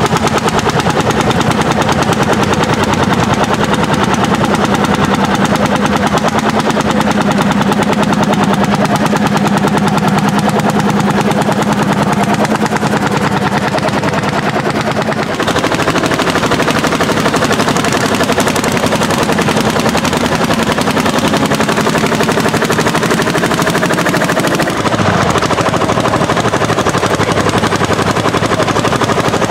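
Landini hot-bulb tractors' single-cylinder two-stroke engines running under ploughing load, a rapid, even run of exhaust beats. The sound changes abruptly about halfway through and again near the end, as a different tractor is heard.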